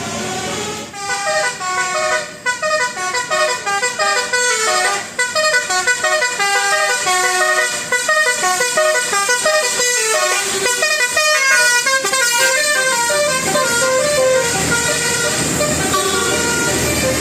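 Bus telolet horn, a multi-trumpet musical horn, playing a fast tune of short notes with several trumpets sounding together. The tune settles into longer held notes near the end.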